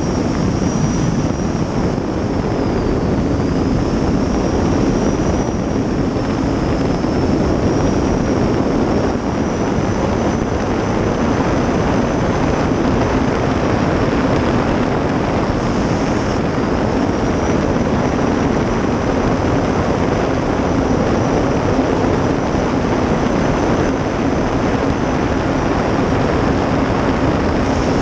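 Gas-turbine race jet boat (a 2000 hp+ turbine in a 23-foot Outlaw Eagle hull) running flat out, heard from the cockpit: a loud, steady rush of turbine exhaust, jet and water. Over it sits a thin high turbine whine that wavers and dips briefly twice.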